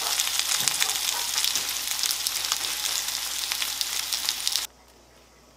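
Rice-flour-coated okra sizzling in oil in a frying pan, a steady hiss with many small pops; the sizzle cuts off suddenly about four and a half seconds in.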